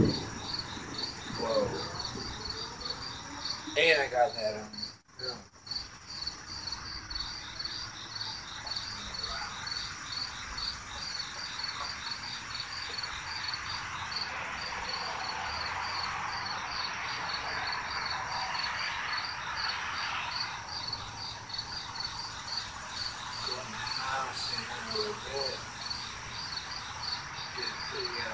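Crickets chirping in a steady, evenly repeated rhythm, with a soft hiss that swells and fades in the middle and a brief louder sound about four seconds in.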